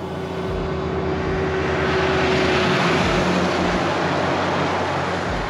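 Heavy-haulage truck towing a multi-axle low-loader with a mining haul truck aboard passes close by. Its engine and many tyres swell to a peak about halfway through, with a steady hum, then fade as it goes.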